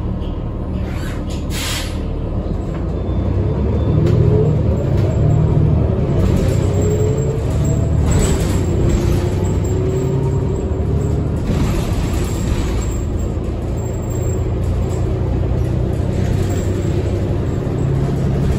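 A 2020 New Flyer XD40 diesel city bus on the move, heard from on board: a steady engine and drivetrain rumble with a whine that rises in pitch in steps as the bus pulls away and gathers speed. Several short hisses of air cut in, typical of the bus's air brakes.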